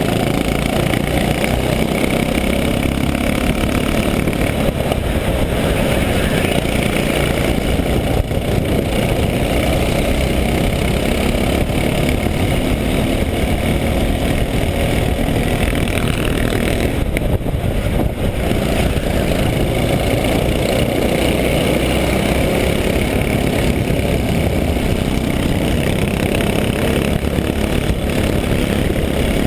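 Go-kart engine running at racing speed, heard close from the kart's onboard camera, loud and steady.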